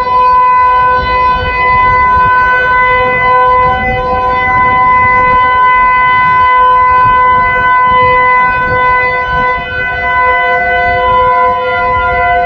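Outdoor tornado warning siren sounding a test, holding one steady wailing pitch. It is loud, jumping up in volume right at the start and then swelling slightly up and down.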